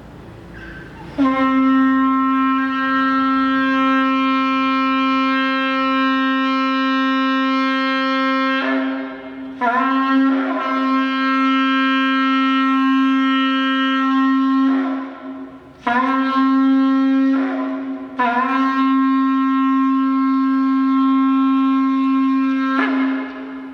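An eland-horn shofar blown in long, steady, low blasts, with brief breaks and a short pitch slide where each blast ends. It sounds about five times: three long held notes of several seconds each, with two shorter blasts in between.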